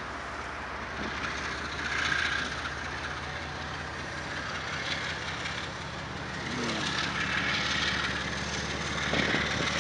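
Canadian Pacific diesel-electric freight locomotive's engine running with a steady low hum as the unit passes, over a broad steady rushing noise.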